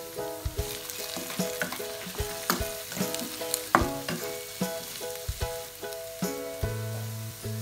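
Beaten egg sizzling in hot oil in a non-stick wok of diced fried potatoes, with a spatula stirring and scraping the mixture and tapping sharply against the pan many times.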